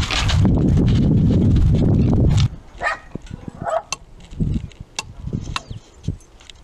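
Wind buffeting a camera microphone: a loud, steady low rumble that cuts off abruptly about two and a half seconds in. After it come only scattered faint clicks and a few brief short sounds.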